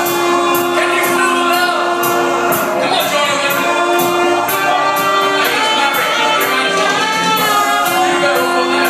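Live band playing upbeat dance music, with singing and saxophone over a steady drum beat.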